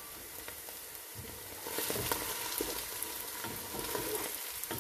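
Chopped onions, green chillies and tomato pieces sizzling in hot oil in a frying pan. About two seconds in the sizzle grows louder as a spatula stirs them, with light clicks of the spatula against the pan.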